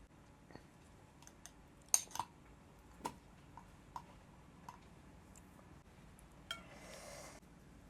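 Cutlery clinking against a dish in a few sharp, separate clinks, the loudest about two seconds in, followed by a short hiss near the end.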